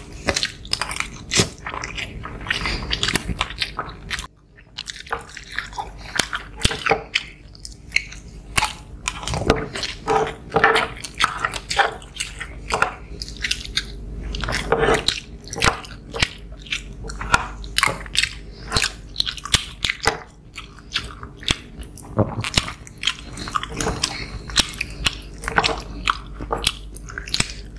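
Close-up eating sounds of two people chewing rice and fish: many short, irregular wet smacks and clicks from their mouths.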